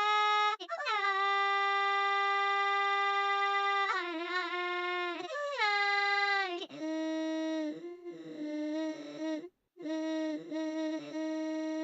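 A drawn-out crying wail: long held notes that slide down in pitch, then breaking into shorter, choppier sobbing wails, with a brief pause about nine and a half seconds in.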